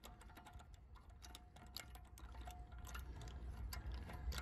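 Socket and extension bar turning a loosened wheel nut on its stud by hand: faint, irregular metal clicks and ticks, coming more often and a little louder towards the end.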